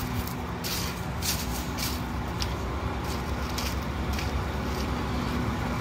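Volvo semi truck's diesel engine idling steadily, with a few faint scuffs over it.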